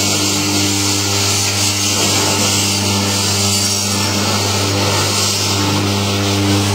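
KT coconut milk extractor running: a steady electric-motor hum under a continuous grinding, rubbing noise of the machine pressing out coconut milk.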